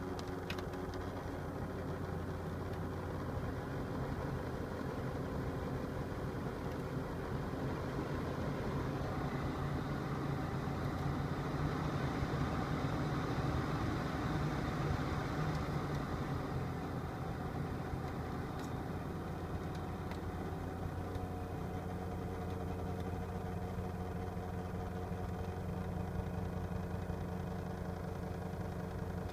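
Mitsubishi Delica D:5's blower motor running with an abnormal noise, a steady mechanical hum with several held tones. It grows louder and rougher from about nine seconds in, then settles back a few seconds later.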